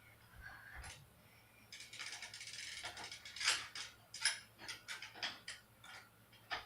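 Rapid ratcheting clicks for about a second, then a run of separate metal clicks and knocks, from hands and tools working on a BMX bike's chain and drivetrain.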